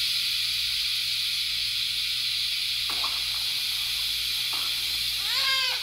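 Steady airy hiss of a suction catheter clearing a newborn's nose. Near the end the newborn starts to cry in short wavering wails.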